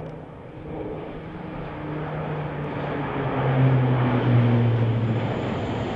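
Four-engine C-130 Hercules turboprop air tanker passing low overhead: a steady propeller drone that grows louder through the first half, its humming pitch dropping slightly as it goes by.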